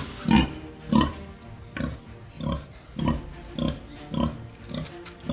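Pig grunting in a steady rhythm, short grunts about every half-second, loudest in the first second.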